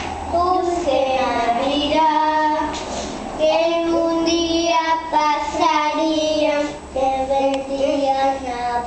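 A young child singing a tune in long, held notes.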